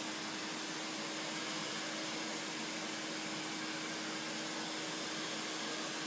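Steady whirring, fan-like noise with a constant low hum underneath, unchanging throughout.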